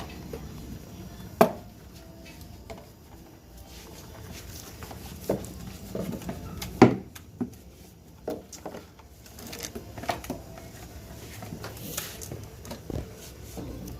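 Scattered knocks and clicks of hard objects being handled, loudest about a second and a half in and again near the middle, over a low steady background hum.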